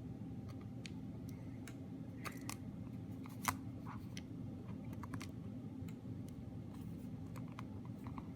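Light irregular clicks and taps of small parts being handled as a replacement battery is fitted into an opened iPod, the sharpest about three and a half seconds in, over a steady low hum.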